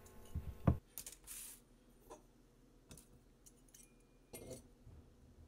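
Parts of a new stainless steel sink strainer and its brass nut being handled and set down on a countertop: a few scattered light metal clinks and knocks, with a brief scuff about a second in.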